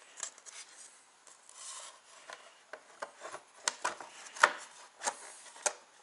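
Thin insulated balance-lead wires rubbing and rustling as they are pulled through a hole in a plexiglass sheet, with a string of sharp plastic clicks and taps as the sheet and crate are handled, the loudest about halfway through.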